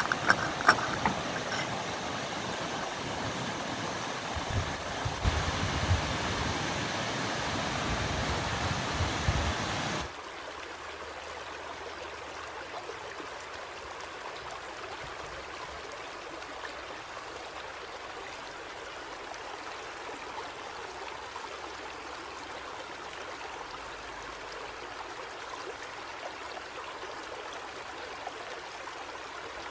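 Running water rushing steadily. For the first ten seconds it is louder, with a few sharp clicks in the first second and some low bumps. Then it drops suddenly to a quieter, even rush.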